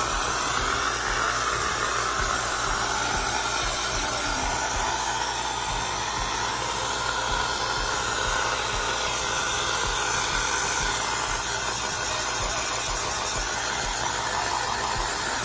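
Compressed-air spray gun with a suction cup hissing steadily as it blasts cleaning fluid over a removed motorcycle engine part.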